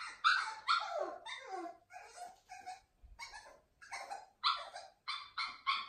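An 11-week-old French Bulldog puppy crying in a string of short yelps and whines, two to three a second, several of them falling in pitch: a young puppy crying while being settled for the night.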